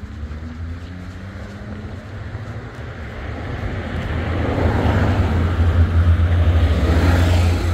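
Motor vehicle approaching and passing close by: a steady low engine rumble with road noise that grows louder from about halfway in and peaks near the end.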